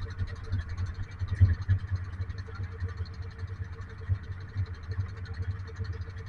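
Small fishing boat's engine running steadily under way while trolling: a low, uneven throb with a faint steady whine above it.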